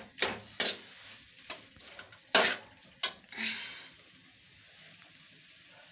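A metal spoon knocking and scraping against a thin metal kadhai while stirring, about six sharp clacks over the first three seconds. Then comes a short hiss, and after that only a faint steady hiss.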